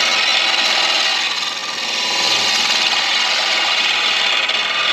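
Deer antler spinning on a midi lathe with a turning tool cutting into it: a steady scraping hiss that eases briefly about one and a half seconds in.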